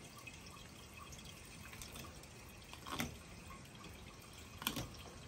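Faint dripping water, with two sharp ticks about three seconds in and again near the end.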